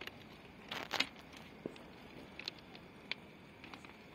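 Footsteps crunching on the gravel ballast of a railway track, a step about every two-thirds of a second, the loudest about a second in.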